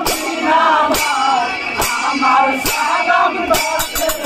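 Men singing an Assamese boat-race song, with hand claps and small brass hand cymbals struck on a steady beat, a little faster than once a second.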